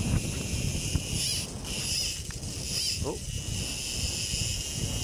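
Wind buffeting the microphone on an open boat, with a steady high hiss over it and a short falling squeak about three seconds in.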